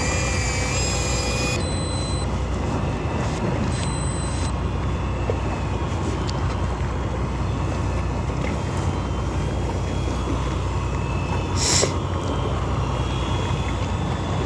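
Fishing boat's engine running steadily under a haze of wind and water noise. A high whine rises in pitch right at the start and holds for about a second and a half, and a brief hiss comes about twelve seconds in.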